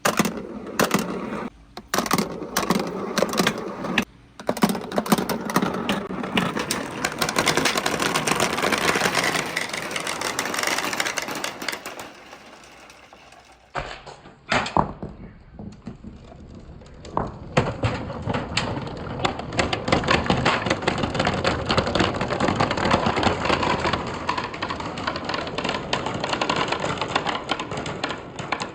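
Many marbles rolling and clattering down a marble-run track in a dense, continuous rattle of clicks. The clatter thins out about halfway through, then builds again.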